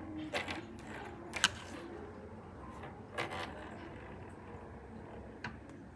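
A kitten batting a plastic marker pen about on a hard desktop: light taps and knocks of the pen against the desk. There is a sharp click about a second and a half in, another near the middle and a fainter one near the end.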